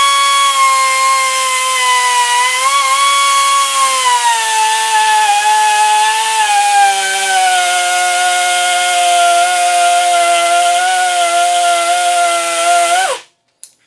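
Die grinder running and grinding into a steel worm screw: a steady high whine that sags lower in pitch about four to six seconds in as it bears down under load, then holds there until the grinder shuts off near the end.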